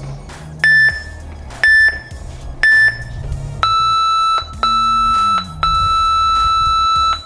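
Workout interval timer beeping: three short beeps a second apart, then a longer, lower beep lasting about three and a half seconds with two brief breaks, signalling the end of the exercise set and the start of the rest.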